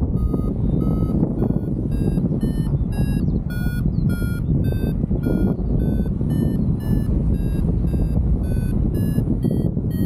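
Paragliding variometer beeping steadily, short beeps about two to three a second that slowly rise in pitch and quicken, the tone a vario gives while climbing in lift. Under it, a constant rush of wind over the microphone.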